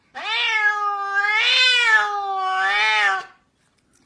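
Domestic cat meowing: one long, drawn-out call of about three seconds that rises in pitch at the start and swells twice before stopping.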